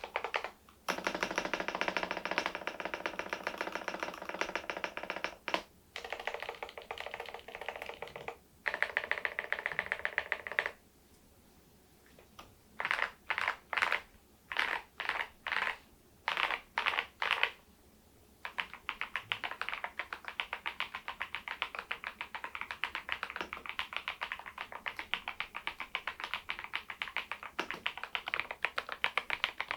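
Machenike K500 PRO mechanical keyboard fitted with Adelie V2 switches being typed on. Fast continuous runs of keystrokes, broken by brief pauses, give way to about eight short separate bursts and then steady typing through the rest.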